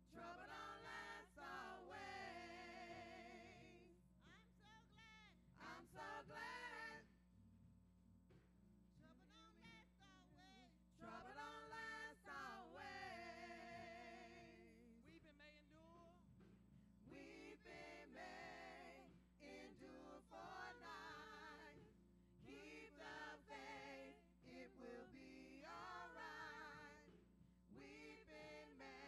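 Several women's voices singing together through handheld microphones, in sung phrases broken by short pauses.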